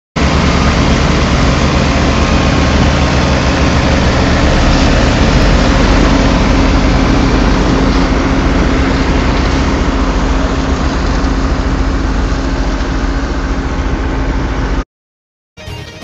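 Diesel engine of a Volkswagen dump truck running steadily while it spreads stone chippings, with a constant hiss over it. The sound cuts off abruptly about a second before the end.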